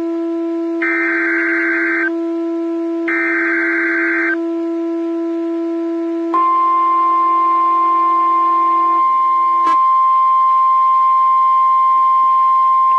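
Emergency alert SAME header data bursts: harsh digital screeches about a second long, a second apart, over a steady low drone. About six seconds in, the NOAA Weather Radio 1050 Hz warning alarm begins as one continuous steady tone, with a click just before ten seconds.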